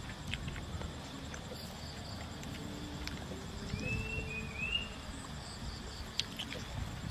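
Evening field ambience: insects trilling steadily in a high, pulsing chorus, with a short rising bird chirp about four seconds in and a few faint clicks.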